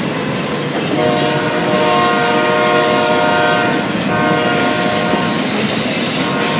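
Locomotive air horn sounding twice, a long blast starting about a second in and a shorter one after a brief break, over the steady noise of a passing train's wheels on the rails.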